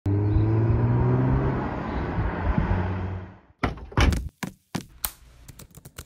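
Car engine running steadily with its pitch sinking, dying away after about three seconds. Two heavy thunks follow, then a string of lighter, fading knocks.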